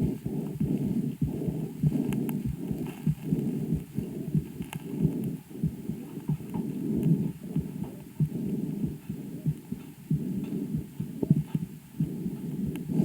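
Calf's chest sounds picked up by a homemade stethoscope microphone on the right side at the first examination: low-pitched breath sounds with heartbeats in a steady rhythm, recorded over the right lung, which ultrasound showed to hold a lesion.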